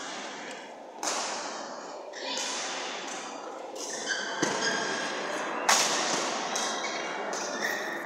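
Badminton rally: racket strings smacking the shuttlecock several times, a second or two apart, each hit echoing in a large hall. The sharpest hit comes about two-thirds of the way through.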